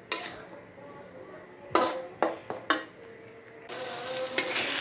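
Metal spatula knocking and scraping against a metal wok a few times while stirring a thick blended chili-and-tomato paste; towards the end the paste sizzles as it fries down in the wok.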